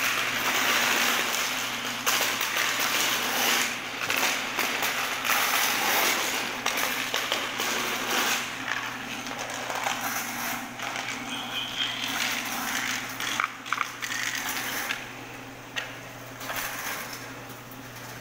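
Electric drum-type drain-cleaning machine running, its steel cable rattling and scraping in the drum as it is fed into a clogged kitchen floor drain. It is louder in the first half.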